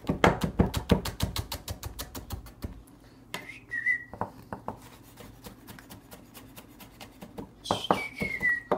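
Kitchen knife rapidly chopping garlic on a wooden chopping board, a quick run of sharp strikes, several a second, loudest in the first second. Twice a short whistled note cuts in, the second one gliding down in pitch near the end.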